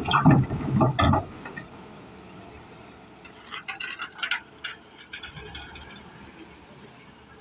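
Rocks scraping and clattering as heavy machinery pushes them, loudest in about the first second, then a few faint clinks and rattles.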